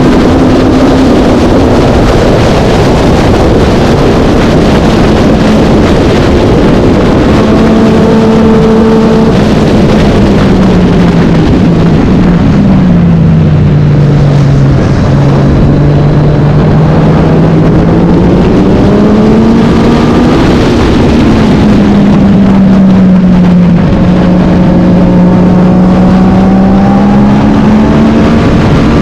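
Vintage racing motorcycle engine running hard and loud, its note holding, then falling steadily from about twelve seconds in to a low around fifteen seconds before climbing back up as it pulls out again.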